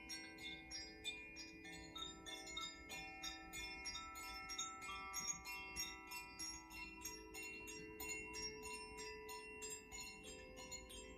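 Koshi chimes ringing softly as they are swirled, the clapper tinkling against the rods about four or five times a second while their bell-like tones overlap and sustain.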